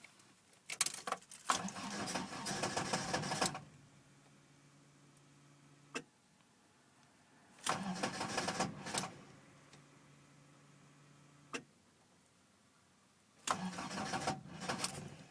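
Toyota 20-valve 4A-GE four-cylinder engine being cranked by the starter in three short attempts, the first the longest, without starting: a cold-start hard-starting fault. A faint steady hum and a single click sound between the attempts.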